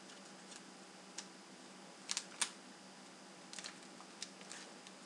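Faint, scattered clicks and crinkles of rolled paper tubes and tape being handled and pressed together, a handful of separate sharp ticks, two of them close together about two seconds in. A low steady hum underneath.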